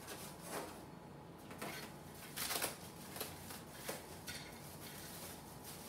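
Packing wrap rustling and crinkling in short, irregular bursts as a small part is unwrapped by hand, the loudest crinkle about two and a half seconds in.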